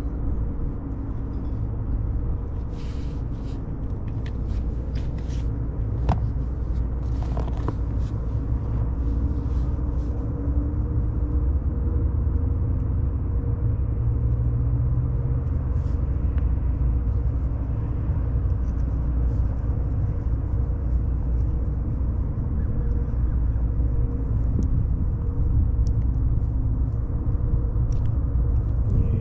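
Steady low mechanical rumble with a faint constant hum, with a few light clicks and taps about three to ten seconds in.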